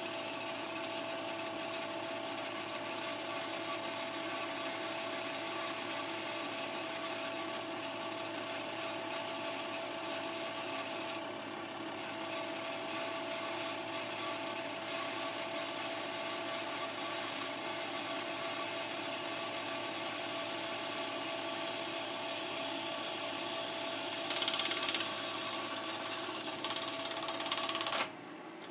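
Home-movie film projector running steadily, a mechanical whirr with a constant hum. Near the end it turns louder and hissier for two stretches, then the sound drops off sharply as the film runs out.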